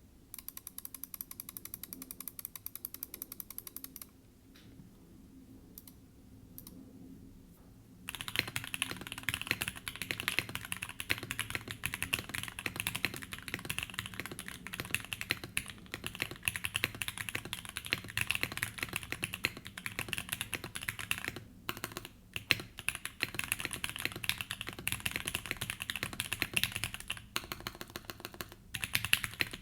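Typing on a Tofu60 mechanical keyboard with lubed and filmed Gateron Milky Yellow linear switches, O-ring mounted, with an FR4 plate and GMK-clone keycaps. Quick, even clicking for the first few seconds, a lull with a few scattered keystrokes, then steady typing from about eight seconds in, broken by brief pauses.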